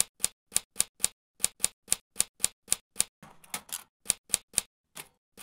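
Typewriter keys striking one by one, about four a second, a dozen strokes, then a short rattling a little after three seconds and a few more key clicks.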